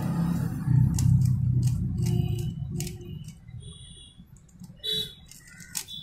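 Plastic Rubik's cube being turned quickly by hand: a run of rapid clicks from the layers snapping round. Under it is a low rumble that fades out about halfway through.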